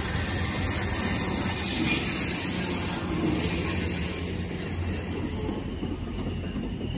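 MARC MP36PH-3C diesel locomotive growling past close by, its 16-cylinder EMD engine loudest in the first two seconds, then the steady rumble of passenger coach wheels rolling over the rails as the train passes.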